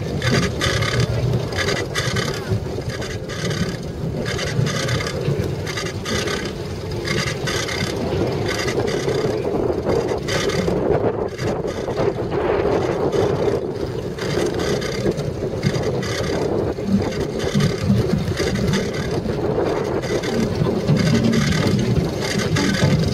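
Bicycle rolling over hard-packed desert dust, heard from a camera mounted on the bike: a steady rumble and scraping of the tyres, with a fast rattle from the bike and mount.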